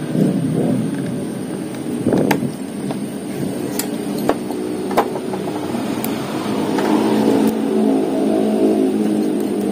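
A steady engine drone runs underneath and swells a little about seven seconds in. Over it come a few sharp clicks and taps as the metal doctor blade is laid onto the plastic toner cartridge hopper and pressed into place.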